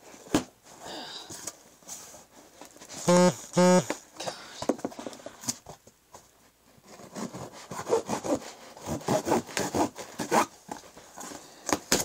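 Cardboard shipping box being worked open by hand: scraping and rasping of cardboard. About three seconds in come two short, loud pitched rasps, and the second half holds a run of quick scratchy handling noises.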